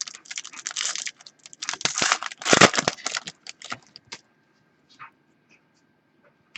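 Trading-card pack wrapper being torn open and crinkled in the hands for about three and a half seconds, then a few faint clicks of handling.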